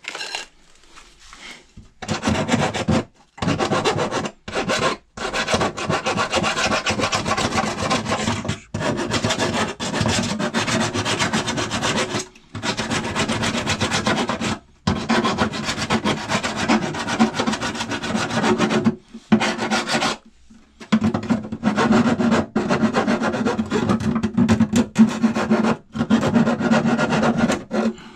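Abrasive scraping and rubbing on the car's sheet-metal fender, as in sanding or filing it during rust repair. It starts about two seconds in and runs in steady stretches broken by short pauses every few seconds.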